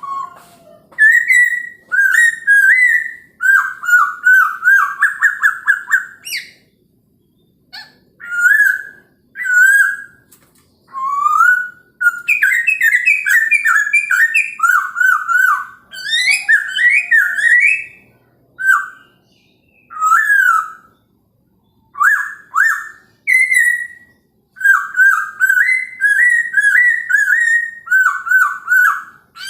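A Poksay Hongkong laughingthrush singing loud, rapid whistled phrases of quick rising and falling notes, with short pauses between phrases.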